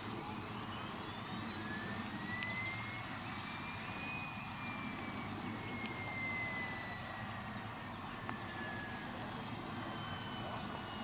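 High turbine whine of a model aircraft passing, rising in pitch over about four seconds and then falling slowly, over a steady low rumble.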